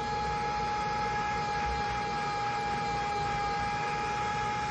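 Small electric blower running steadily: an even rush of air with a constant high motor whine.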